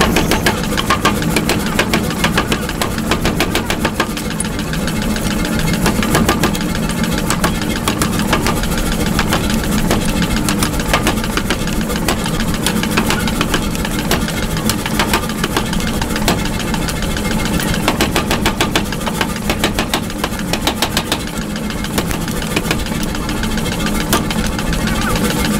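Mechanical power hammer running, its ram striking hot steel in rapid, repeated blows over a steady machine drone while a hammer head is forged.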